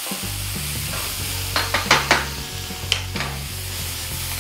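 Sliced oyster and brown mushrooms sizzling in hot oil in a nonstick frying pan as they are stirred with a wooden spoon, with a few sharp clicks about two seconds in.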